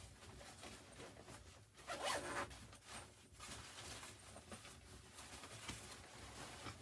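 A zipper being worked in a series of short rasping pulls, the loudest about two seconds in.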